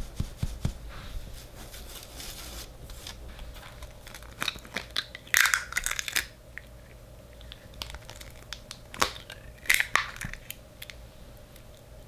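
Eggs cracked by hand into a glass mixing bowl: sharp shell cracks followed by crackling as the shells are pulled apart, in two bursts, about five seconds in and again about ten seconds in.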